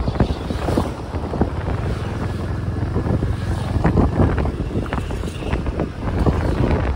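Wind buffeting the microphone on a moving motorbike, over the low rumble of the bike and road.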